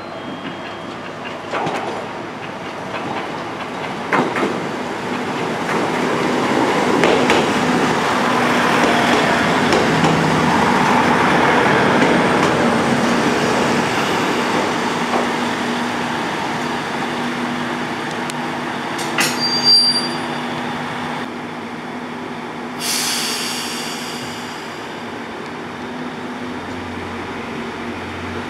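KiHa 25 diesel multiple unit pulling into the station and running close past, its wheel and engine noise building to a peak and then easing as it slows. Near the end of its run come a brief high squeal and clanks as it stops, then a sharp hiss of air, and the engines run on quietly at a standstill.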